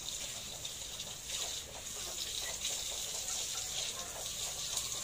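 Ready-to-lay pullets clucking softly over a steady high hiss that gets stronger after about a second.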